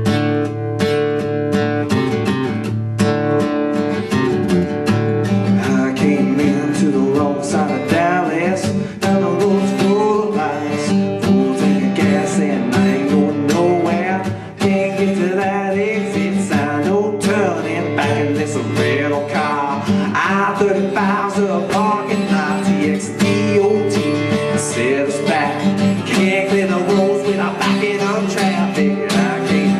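Country song with strummed acoustic guitar and a sung vocal.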